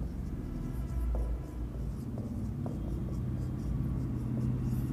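Marker pen writing capital letters on a whiteboard: a run of short scratchy strokes, over a steady low hum.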